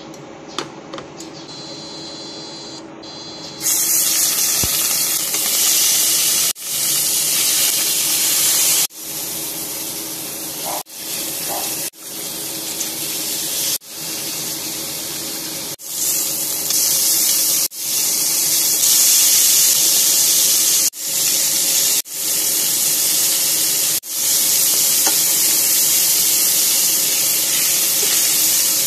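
Pork ribs, then onion and tomato, sizzling in hot oil in a stainless steel pan: a loud, steady hiss that starts about three and a half seconds in, after a low hum, and drops out briefly about every two seconds.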